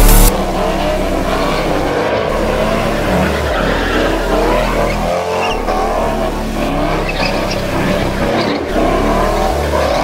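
A car doing burnouts and donuts: its engine revs hard while its tyres squeal and spin against the pavement.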